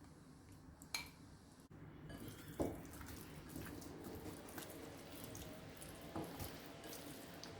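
Spoon stirring a thick hung-curd and spice marinade in a bowl: faint wet squishing, with light clinks about one second and two and a half seconds in.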